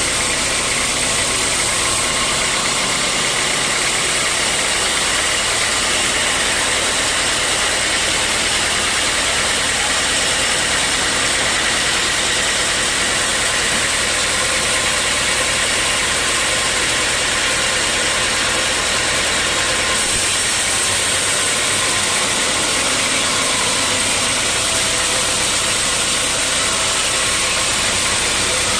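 Sawmill machinery running steadily, a constant loud mechanical noise. Its high hiss changes about 2 seconds in and again about 20 seconds in.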